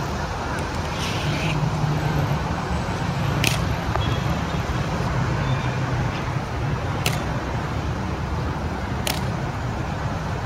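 Steady city traffic rumble, with a few sharp clicks spaced two to three and a half seconds apart.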